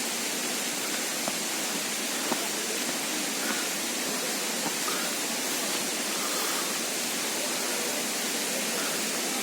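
Waterfall rushing: a steady, even roar of falling water, with a few faint ticks.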